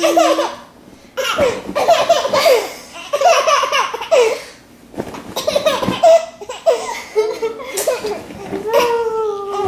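Baby belly-laughing in repeated bouts, with short breaks between them.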